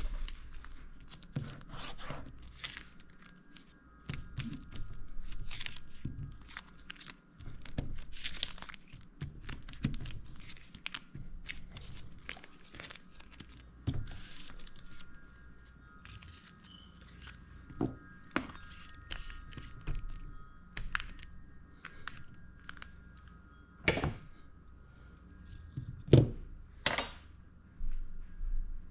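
Irregular handling noises from hands and small tools on a workbench: rustling, crinkling and scraping with scattered clicks, and a few sharper knocks near the end.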